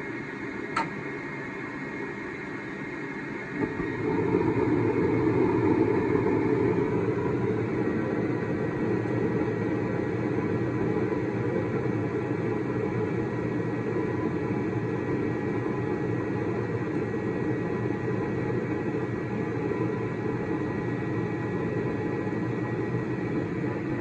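Gas furnace lighting off: under a steady running noise there is a sharp click about a second in. A few seconds in, the gas burners ignite with a sudden jump in level and keep burning with a steady rushing sound. The flame holds, so the sandpapered flame sensor is proving the flame.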